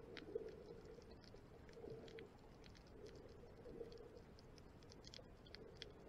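Faint underwater ambience, just above near silence: a muffled low hum with small irregular clicks and crackles scattered through it.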